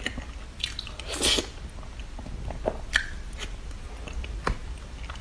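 Close-up eating sounds of a person taking soft mousse cake from a spoon: wet mouth and chewing noises with scattered sharp clicks, the loudest burst about a second in.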